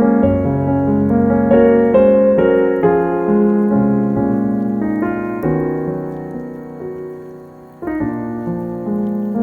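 Background piano music: a slow melody over held chords, dying away about seven seconds in before a new phrase begins.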